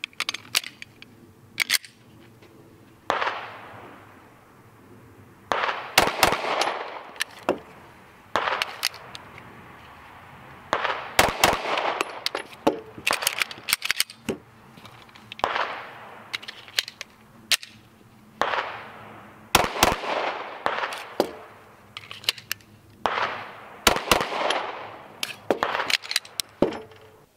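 9mm pistols fired in double taps: four pairs of sharp shots, each pair a fraction of a second apart, with several seconds between pairs. Fainter shots and metallic handling clicks come in between.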